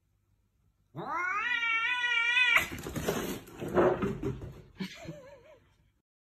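Domestic cats in a standoff caterwauling. About a second in, a rising, wavering yowl breaks into a harsh, noisy hissing spat. Near the end comes a short warbling yowl.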